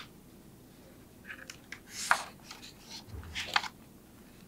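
Large page of a picture book being turned by hand: a few short papery rustles and flaps, the sharpest about two seconds in and again about three and a half seconds in, with a soft low bump between them.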